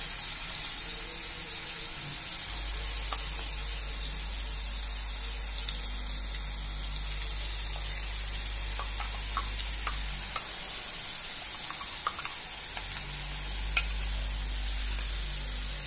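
Wet masala paste frying in plenty of hot oil in a kadhai: a steady sizzling hiss. A few light clinks come from a steel spoon scraping the paste out of a steel mixer jar, mostly in the second half.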